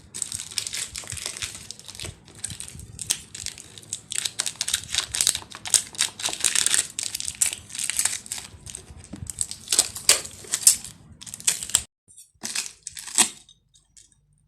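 Plastic packaging being crumpled, crinkled and torn open by hand in a rapid run of rustling bursts, stopping about 12 seconds in, with a few short crinkles near the end.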